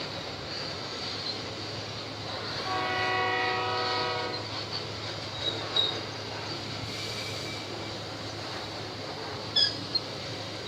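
Freight train locomotive's air horn sounding one blast of about two seconds, several notes held together, over the steady rumble of the train running on the rails. A few short, sharp high-pitched chirps or squeaks come later, around six and ten seconds in.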